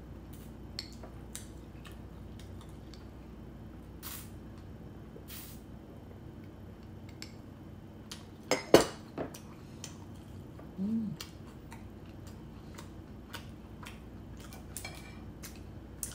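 Close-up eating sounds: small mouth clicks and soft handling of crumbly scone. About eight and a half seconds in, a drinking glass is set down on the table with a loud knock and clink, and a short low hum from the eater follows a couple of seconds later.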